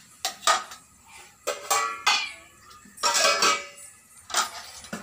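Steel kitchen dishes and utensils clinking and clattering in about five separate bursts. The longest bursts come about two seconds and three seconds in.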